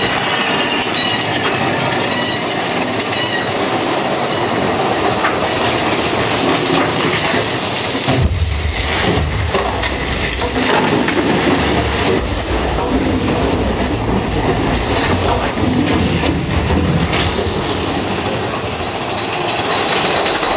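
Big Thunder Mountain Railroad mine-train roller coaster clattering and rattling along its track through a tunnel. About eight seconds in, a deep rumble sets in with the ride's explosion effect and carries on under the clatter.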